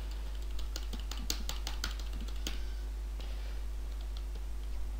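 Computer keyboard being typed on: a quick run of keystrokes for about two seconds, then a few more scattered key taps, over a steady low electrical hum. It is a password being typed at a terminal's sudo prompt.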